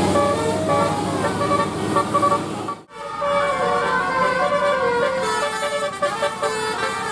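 Bus 'telolet' horn, a set of multi-tone horns playing a quick tune of stepped notes over a low steady hum. It cuts off abruptly about three seconds in, and another telolet horn tune starts.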